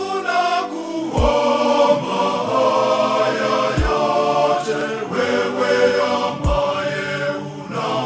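Church choir singing a Swahili hymn in harmony, with a deep low beat three times, about every two and a half seconds.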